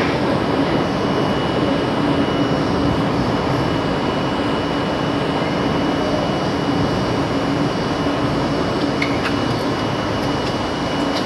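R32 subway train running on elevated track: a steady rumble with a constant hum and a thin high tone, and a few faint clicks about nine seconds in.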